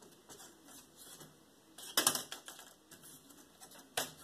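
Light clicks and clacks of small wooden and plastic parts on a homemade model car-hauler trailer being handled, with a flurry of clatter about two seconds in and one sharp knock near the end.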